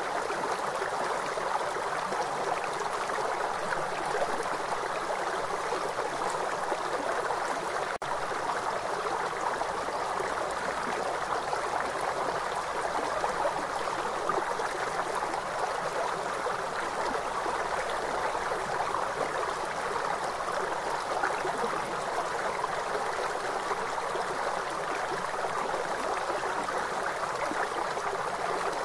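Fast-flowing river water rushing, a steady even noise with no let-up, with a momentary dropout about eight seconds in.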